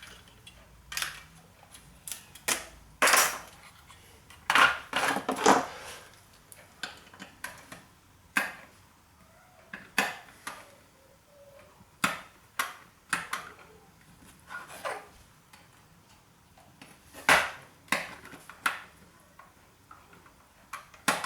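Sharp, irregular clicks and clacks of metal and plastic parts of a floppy disk drive being prised and broken apart with hand tools, busiest a few seconds in.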